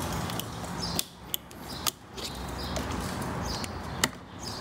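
A few sharp plastic clicks and taps as a plastic trim removal tool pries at an electrical connector on a car's air intake assembly, the loudest click near the end, over a faint steady hum.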